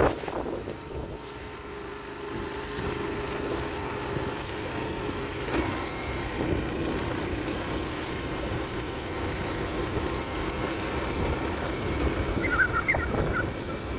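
Yamaha AG125 farm motorcycle's single-cylinder two-stroke engine running at a steady cruising speed, with wind rumbling on the microphone.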